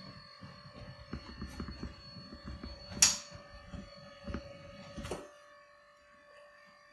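Beautyrest Black adjustable bed base's motors running faintly as the bed moves into the zero-gravity position, stopping about five seconds in. A sharp click sounds about three seconds in.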